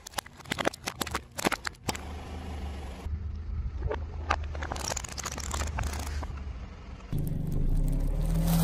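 Plastic cracking and snapping under a car tyre: a quick run of sharp cracks in the first two seconds, then a car engine running low with a few more snaps. About seven seconds in, a louder steady rushing noise comes in.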